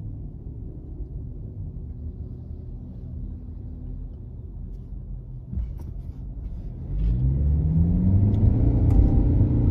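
Car engine rumble, with a few clicks about five and a half seconds in; from about seven seconds the rumble grows louder and the engine's pitch rises as the car accelerates.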